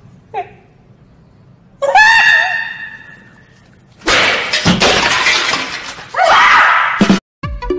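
Loud shrill cries: a short one just after the start, a long shrill one about two seconds in, and another near the end. Between them, about four seconds in, comes a harsh crash-like noise lasting about two seconds. It all cuts off abruptly.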